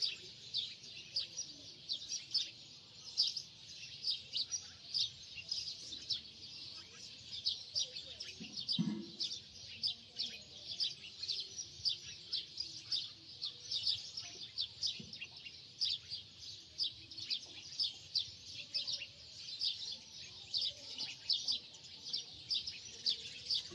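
Birds chirping continuously in quick, high-pitched calls, several a second.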